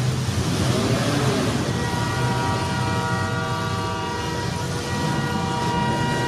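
Demolition derby car engines running hard, with a horn blaring a steady multi-tone chord from about two seconds in.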